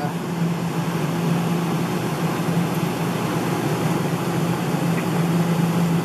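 Steady low mechanical hum over a constant noise background.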